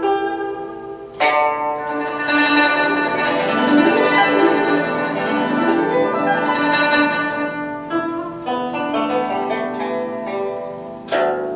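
Instrumental background music on a plucked zither-like string instrument, with rippling runs of notes. A strong new phrase strikes in about a second in, and another near the end.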